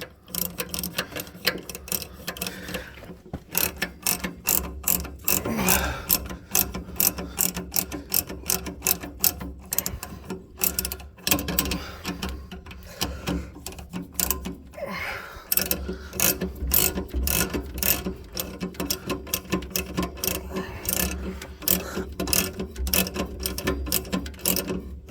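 Hand ratchet wrench clicking in quick runs, several clicks a second, as bolts are tightened, over a steady low hum.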